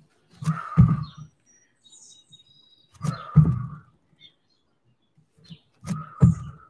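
Bare feet jumping off and landing on a yoga mat over a wooden deck during repeated squat jumps. There are three jumps about two and a half seconds apart, each a pair of heavy thuds close together.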